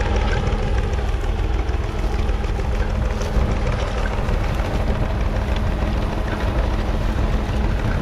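1943 Fordson Model N tractor's 4.0-litre four-cylinder P4 diesel engine running steadily.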